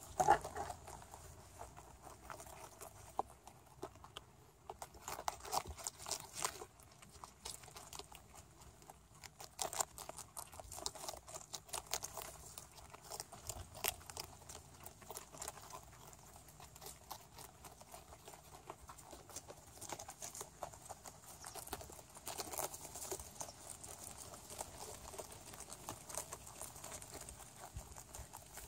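A group of young rabbits gnawing a head of white cabbage: many small, irregular crisp clicks and crunches as they bite into the leaves, with light rustling of leaves.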